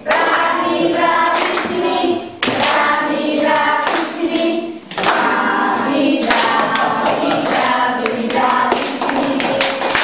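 Several voices singing a song together in phrases, with short breaks about two and a half and five seconds in.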